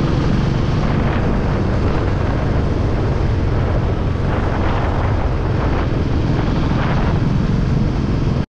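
Single-cylinder motorcycle engine running steadily at road speed, heard from the rider's helmet-mounted camera with wind rushing over the microphone; the sound cuts off abruptly just before the end.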